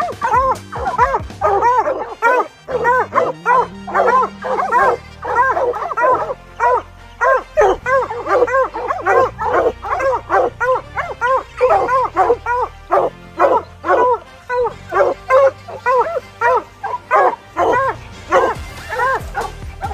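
A pack of bear hounds barking treed at the base of a tree, a fast, overlapping run of short chop barks from several dogs at once: the sign that they have a bear up the tree. Low background music runs underneath.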